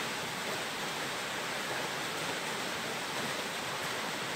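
Steady, even hiss with no distinct events: the recording's background noise.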